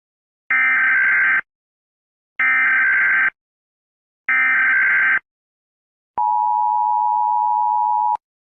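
Emergency Alert System SAME header: three identical bursts of warbling digital data tones, each about a second long, then the two-tone EAS attention signal held steady for about two seconds.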